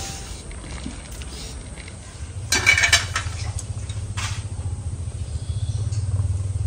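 A metal pot lid clatters against the pot about two and a half seconds in, with a few smaller knocks after. Then a pot of sweet potatoes boiling on the stove gives a steady low rumble.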